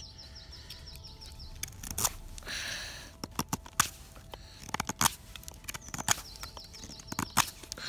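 White-steel carving knife cutting and shaving a small piece of wood by hand: a quick, irregular run of short, crisp strokes, with one longer scraping cut about two and a half seconds in.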